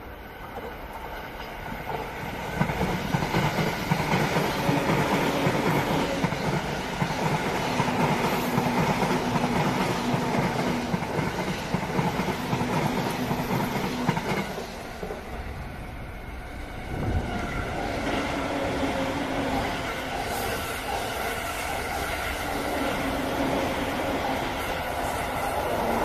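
Electric commuter trains passing close below on the tracks: the first grows loud about two seconds in and runs past for some twelve seconds, then, after a short lull, a second train comes through and keeps going.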